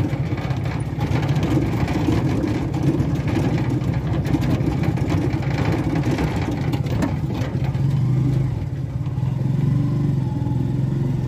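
Motorcycle engine of a Philippine tricycle (motorcycle with sidecar) running steadily while riding along a road, heard from aboard with road and wind noise.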